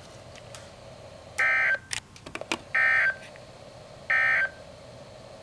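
Three short bursts of EAS SAME digital data tone, each about a third of a second long and spaced about 1.4 s apart: the end-of-message code that closes an Emergency Alert System broadcast. A few faint clicks fall between the first and second bursts.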